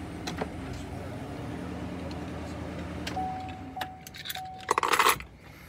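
Chevy Silverado pickup's engine running with a steady low hum that stops about three seconds in. A steady electronic tone then sounds, broken by a few clicks, and a short jingle of keys comes near the end.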